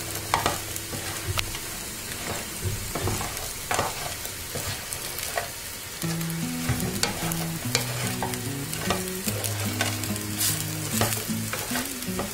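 A wooden spatula stirs and scrapes fried chicken pieces in a nonstick frying pan, with frequent short knocks against the pan over a steady sizzle. The chicken is being tossed into a fry of dried red chillies, garlic and curry leaves to coat it.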